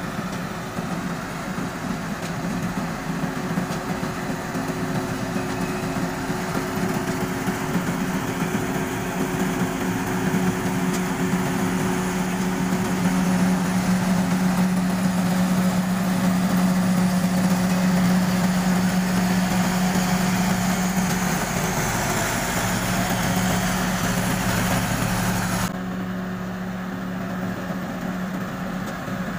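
Rice combine harvester running in the paddy, a steady engine hum under the rushing noise of its working mechanism. It grows louder as the machine comes close about halfway through, and the sound drops suddenly a few seconds before the end.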